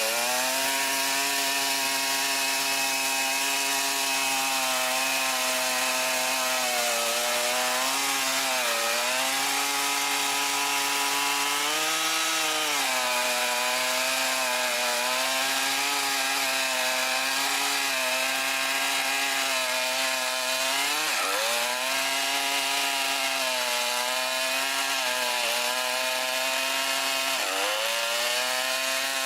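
Long-bar chainsaw running at high revs while cutting through a thick tree trunk, its engine note dipping briefly several times as the chain bogs down in the wood.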